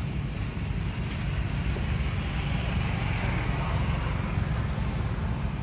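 Wind rumbling on the microphone: a steady low noise with no pitch to it.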